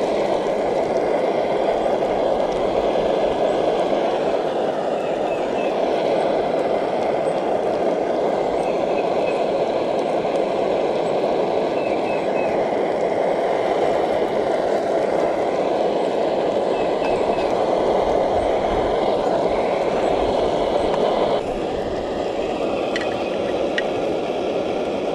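Canister camp stove burner running steadily under a skillet of morel mushrooms frying in butter. The level drops slightly about 21 seconds in, and a few faint clicks follow.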